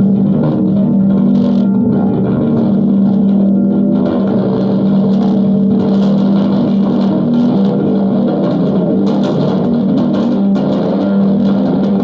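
Electric bass guitar through effects playing a drone: one low note held steady under a dense buzzing wash of overtones. From about four seconds in, crackly, noisy scrapes and clicks join above the drone.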